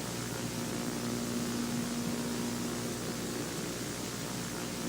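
Steady static hiss with a steady low hum underneath, unchanging throughout.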